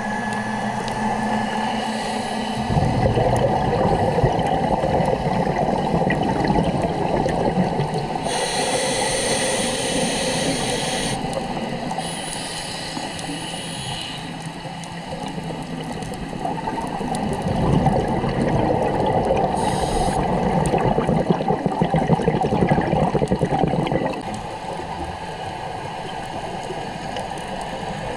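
Underwater water noise of a scuba dive, with rushing, gurgling bubble noise that swells twice for several seconds at a time: a few seconds in and again past the middle.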